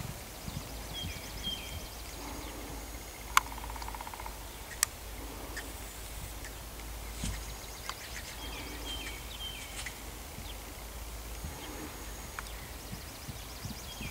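Outdoor ambience: wind rumbling on the microphone and small birds chirping in short repeated phrases of falling notes, with two sharp clicks a second and a half apart.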